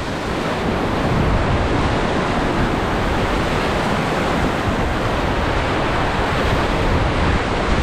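Rushing white water around a paddled raft, a steady noise with no break, mixed with wind buffeting the microphone.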